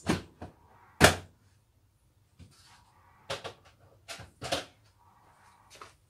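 Indesit dishwasher door being shut: a knock right at the start and a louder thud about a second in, then a few lighter knocks and clicks.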